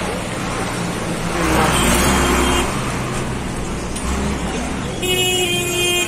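Road traffic: a steady low engine rumble and a vehicle passing about two seconds in, then a horn honking for about a second near the end.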